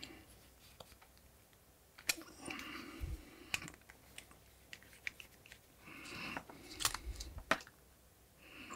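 Light handling noise from a desoldering handpiece and its cable: a few sharp clicks scattered through and brief rustling in two short stretches.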